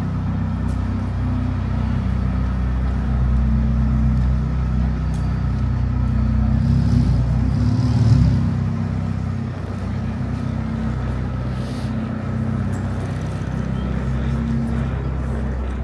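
Street traffic, with a motor vehicle's engine running close by as a steady low hum that swells to its loudest about eight seconds in.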